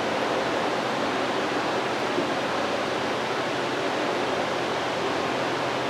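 Steady fan-like hiss with a faint low hum from a CNC router running a NEJE diode laser module while it engraves cardstock. There are no distinct strokes or changes.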